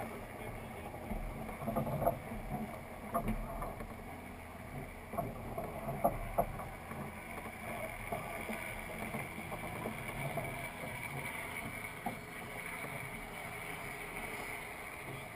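Dufour 45e sailing yacht under way: a steady rush of water along the hull and wake with wind, broken by a few short knocks on deck.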